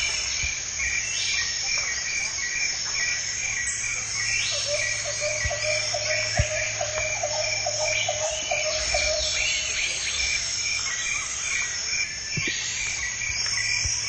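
Jungle ambience dominated by a dense insect chorus: an evenly pulsing high trill with repeated rising buzzy sweeps over it. A run of rapid, lower chirps comes in about four seconds in and stops near the ten-second mark, over a low steady hum.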